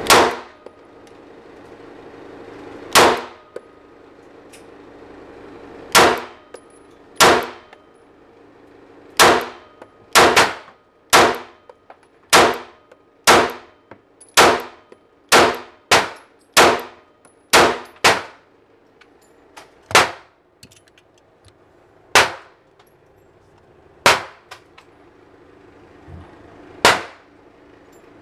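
A 9mm pistol firing about twenty single shots, each a sharp crack with a short echoing tail. The first shots come a few seconds apart, then a faster string follows, roughly one to two shots a second, before the pace slows again near the end.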